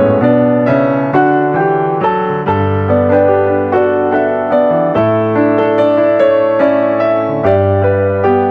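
Background piano music: a steady flow of notes over sustained bass notes that change every couple of seconds.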